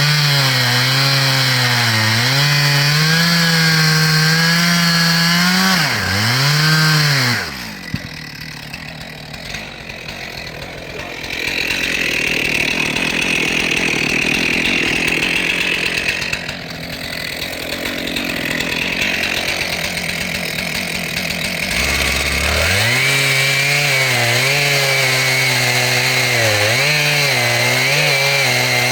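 Stihl MS441 Magnum two-stroke chainsaw with a 36-inch bar and new chain, running at full throttle and pulling down under load as it cuts wood. About seven seconds in it revs once and drops to idle for roughly fourteen seconds, then is throttled back up and cuts again.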